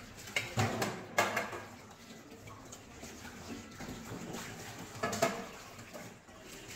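Stainless steel bowls clanking against each other and the steel sink as they are washed by hand under a running tap. There are a few sharp clanks about half a second in, just after a second and near five seconds, over the steady wash of water.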